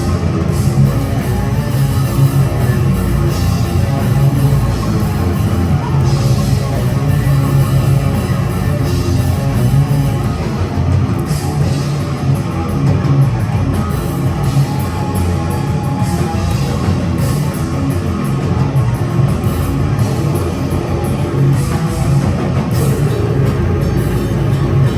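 Death metal band playing live: distorted electric guitars, bass and drum kit, loud, dense and unbroken.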